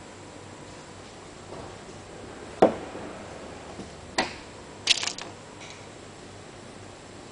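Sharp clicks and taps of a brass-rod pushing tool seating tiny brass bridgepins into a harpsichord's wooden bridge. Single clicks come at irregular intervals, the loudest about two and a half seconds in, and a short quick clatter of clicks follows around five seconds.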